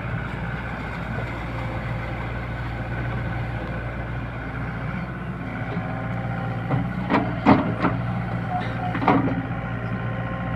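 SDLG crawler excavator's diesel engine running steadily as the boom and bucket work, with a handful of sharp knocks between about seven and nine seconds in.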